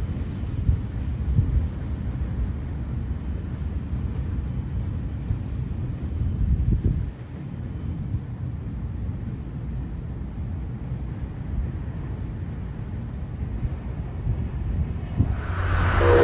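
An insect chirping steadily, about three high chirps a second, over low wind rumble on the microphone. In the last second a train suddenly comes in loud, rushing past.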